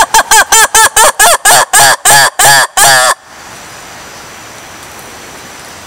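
Black-and-white ruffed lemur giving its loud call: a rapid series of harsh, honking cries, each a little longer than the last, that stops abruptly about three seconds in.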